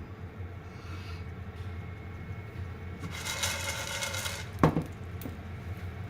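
A steady low hum, then about a second and a half of rustling hiss, followed by a single sharp clatter of a hard object and a lighter knock just after.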